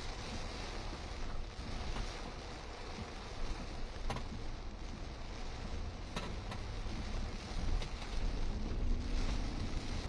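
Heavy wind-driven rain in a severe storm: a steady rushing hiss over a deep rumble of wind gusts, which grow louder near the end, with a couple of sharp taps.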